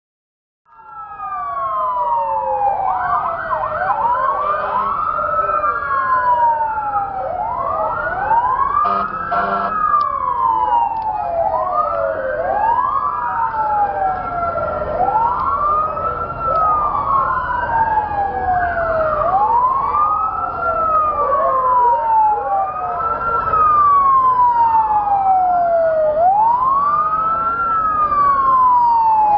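Several emergency-vehicle sirens wailing at once. Each one rises and falls in pitch about every three seconds, out of step with the others. They start suddenly about a second in.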